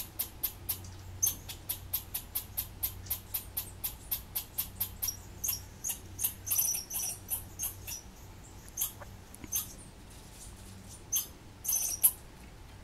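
Squirrel giving a rapid string of sharp, high-pitched alarm calls, about four a second, turning irregular after a few seconds and thinning to a few scattered calls near the end.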